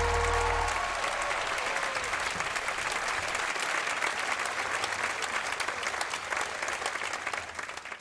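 Audience applauding, with the last held chord of the music ending about a second in; the applause fades away near the end.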